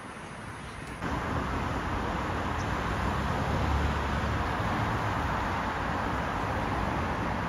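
Road traffic on a multi-lane city road: cars and a small truck passing, a steady rush of tyre and engine noise with a deep rumble that swells about four seconds in. It comes in suddenly about a second in, over a quieter outdoor hush.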